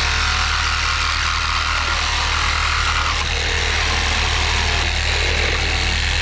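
Corded reciprocating saw running, its blade cutting through the nails that hold a wooden roof purlin to a beam, over a steady low motor hum.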